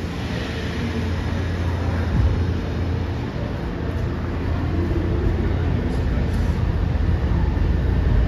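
R211T New York City subway train approaching along the tunnel: a steady low rumble that grows louder toward the end as it nears.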